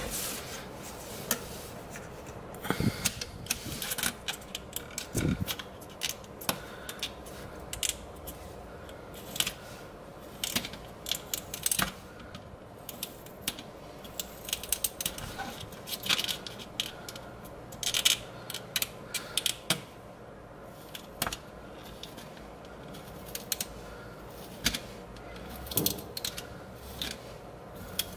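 A pen pressed along a plastic ruler, scoring grooves into a small piece of Depron foam: an irregular run of sharp clicks and short scrapes, loudest about eighteen seconds in.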